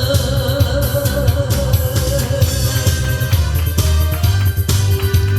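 Loud backing music with a steady drum-kit beat and heavy bass, in an instrumental stretch after the sung verse.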